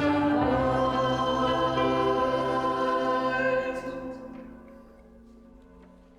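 A choir singing a held chord that stops about four seconds in and dies away, leaving only a faint lingering tone.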